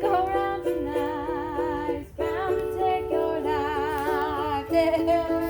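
Music: plucked ukulele notes under a higher melody that wavers up and down, with a brief break about two seconds in.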